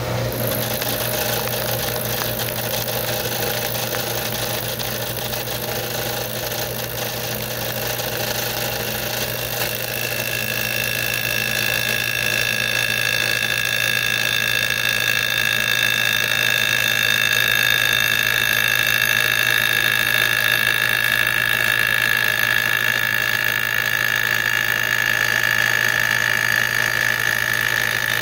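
Milling machine running, its spindle cutter milling the top of a wooden piano key, with a steady low motor hum. About ten seconds in a steady high whine comes in and grows louder as the cut goes on.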